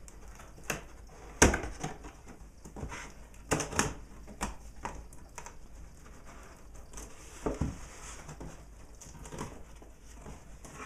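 A cardboard shipping box being cut open with a sharp knife and its flaps handled: scattered knocks, scrapes and rustles, the loudest knock about one and a half seconds in.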